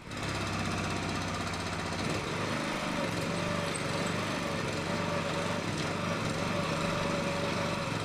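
An engine running steadily at an even pace, with a thin steady whine joining in about two and a half seconds in.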